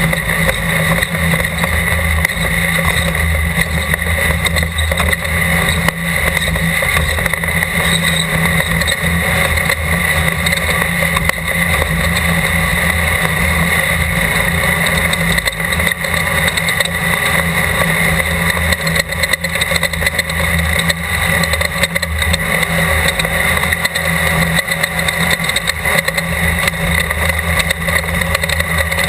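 Class 12 off-road desert race car's engine running hard and steady, with a constant rush of noise over it and no pauses or big changes in pitch.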